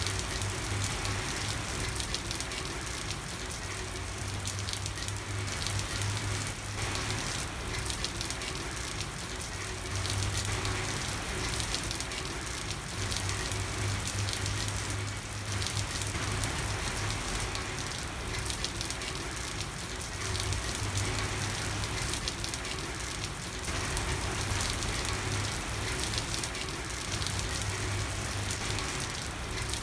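Steady, heavy rain falling on a street, an even hiss with a patter of drops. A low hum swells and fades underneath every few seconds.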